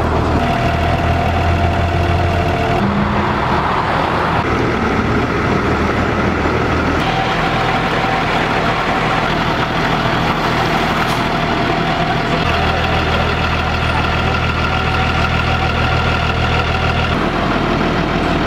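Diesel engine of an asphalt cold milling machine running steadily, with a steady whine over a low drone; the sound changes abruptly several times.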